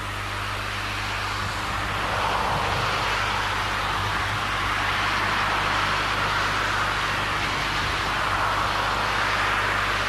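Distant steam locomotive working hard with a train, its exhaust blurred into a steady rushing noise that swells over the first couple of seconds, over a steady low hum.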